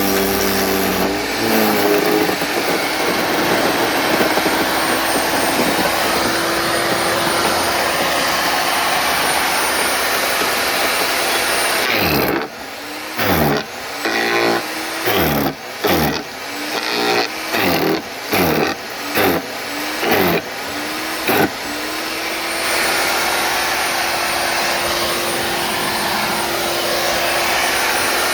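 WEN portable electric wood chipper and shredder running loudly with a steady motor whine. About twelve seconds in, the sound breaks into roughly nine short surges, about one a second, with the motor's pitch sagging and recovering as sticks are fed through and chipped. It then settles back to a steady run.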